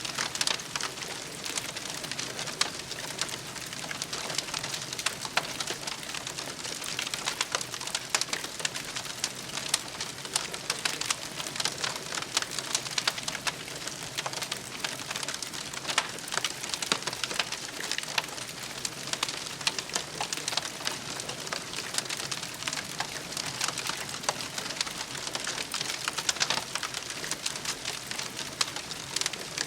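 Campfire crackling steadily, a dense run of small snaps and pops.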